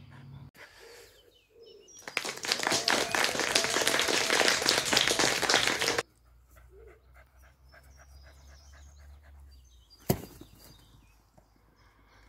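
A dog panting rapidly and loudly for about four seconds, cutting off abruptly. Then faint bird chirps and a single sharp click a couple of seconds before the end.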